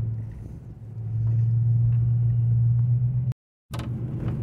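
Steady low rumble of a vehicle driving, engine and road noise heard from inside the cab. It dips briefly less than a second in. Near the end it cuts out abruptly for a split second, then resumes.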